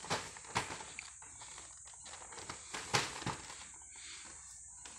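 Cardboard toy boxes being handled and shifted: a few sharp knocks and cardboard rubbing against cardboard, over a steady faint hiss.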